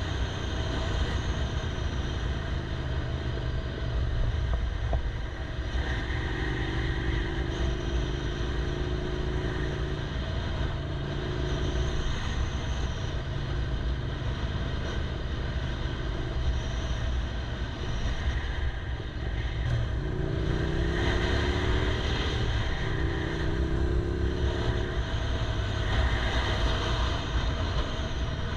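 Yamaha R6 motorcycle being ridden, heard through a GoPro: a steady low rumble of wind and engine, with the engine note rising several times as the bike accelerates, most clearly twice near the end.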